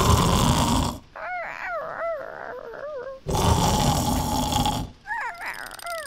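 Exaggerated cartoon snoring from a sleeping puppy puppet: two loud, rasping snores about three seconds apart. Each is followed by a wavering, whistling exhale that glides up and down in pitch.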